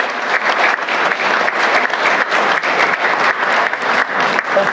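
Audience applauding steadily, many people clapping at once.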